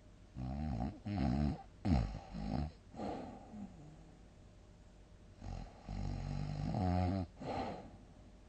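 A sleeper snoring loudly in two bouts. Several short, throaty snores come in quick succession in the first few seconds, then a longer run of snores follows past the middle.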